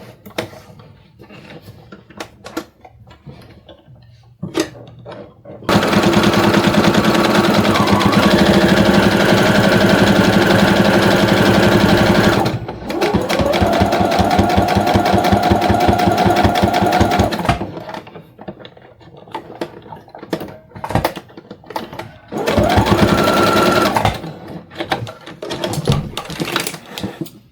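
Brother CE1100 Project Runway sewing machine stitching a straight diagonal seam through fabric and cotton batting, in three runs of rapid needle strokes: a long run starting about six seconds in, a second after a brief stop, and a short burst near the end. Small clicks from handling the fabric come in the pauses.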